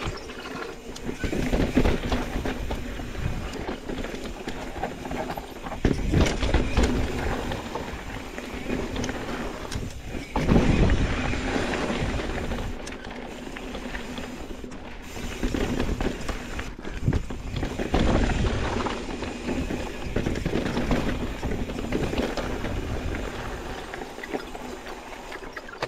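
Mountain bike riding down a rough, rocky trail: tyres running over dirt and rock, the rear hub's ratchet clicking while coasting, and rattling from the bike, with louder jolts a few times.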